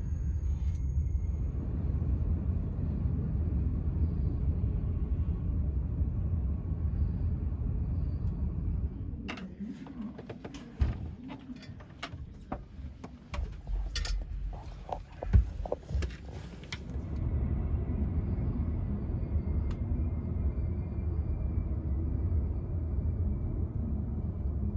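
Low, steady rumble inside a TGV Euroduplex passenger carriage running slowly and then standing. A quieter stretch in the middle holds scattered clicks and knocks.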